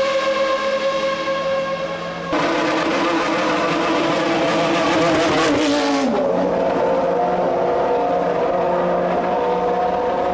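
Formula 1 car engines at high revs, a high-pitched whine with strong overtones. About two seconds in, a louder car's sound cuts in. Its pitch drops sharply about six seconds in, and after that a lower steady engine note carries on.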